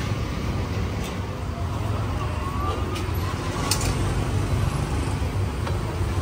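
Busy street ambience: a steady low rumble of road traffic with a few sharp clicks.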